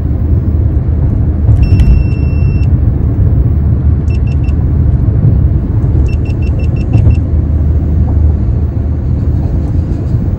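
Steady low road and engine noise inside a Fiat 500's cabin at freeway speed. A short high metallic ringing comes about one and a half seconds in, and quick runs of light metallic ticking come about four and six seconds in.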